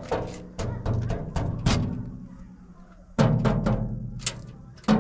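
Knuckles knocking on a metal house door: a run of quick raps, a pause, then a second run about three seconds in. The door panel rings with a low hum after each run.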